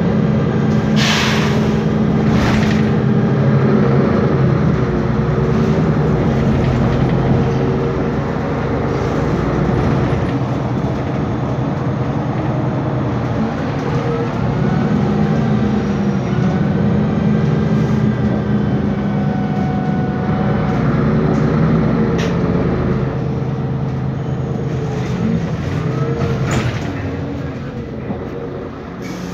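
Cabin sound of a Mercedes-Benz Conecto G articulated bus under way: its OM457LA turbo diesel engine and cooling fan drone steadily, the pitch shifting with speed. A whine glides up and down midway, and a few short hisses come near the start.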